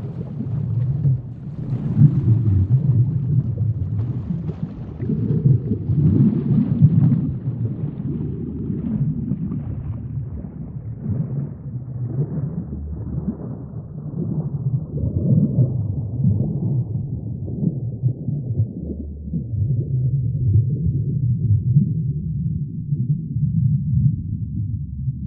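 A low, wavering rumble that swells and ebbs slowly, with a fainter hiss above it that thins out over the span.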